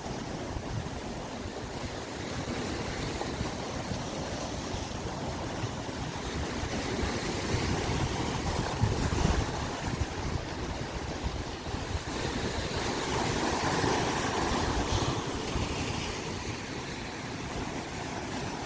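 Ocean surf washing and breaking in a steady rush that swells a little a few times, with wind buffeting the microphone.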